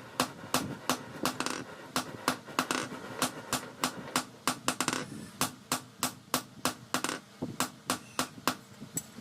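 Hammer blows on an anvil, struck steadily at about three a second, forging a blade from car leaf-spring steel; the hammering stops shortly before the end.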